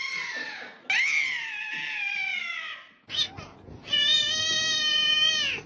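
A domestic cat meowing in long drawn-out calls, three in a row: the first ends just after the start, the second falls in pitch over about two seconds, and the last is held at one steady pitch for nearly two seconds.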